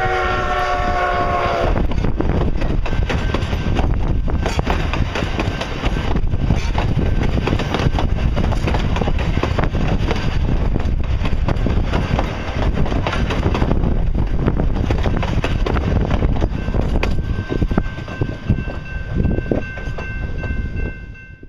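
A steam locomotive's chime whistle sounds a chord of several tones, sagging slightly in pitch and dying away about two seconds in. After that come the passenger coaches of the narrow-gauge train rolling close past, a loud rumble with the wheels clicking and clattering over the rail joints. Near the end a steady ringing tone joins in from the level-crossing signal.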